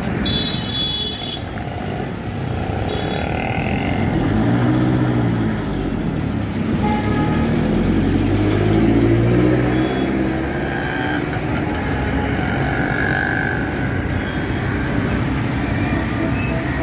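Ashok Leyland city bus engine pulling away and passing close, its engine pitch rising and falling twice as it accelerates and changes gear. Steady street traffic with motorbikes and auto-rickshaws runs underneath, with a short hiss in the first second.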